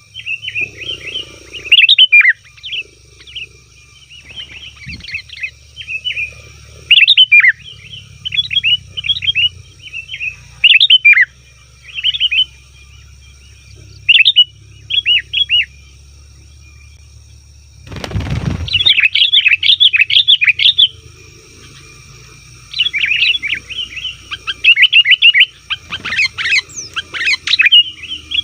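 Sooty-headed bulbul (kutilang) singing: loud bursts of quick, bubbly chirping phrases, repeated with short pauses and coming thicker in the last third. A brief loud thump breaks in about two-thirds of the way through, over a faint steady high hum.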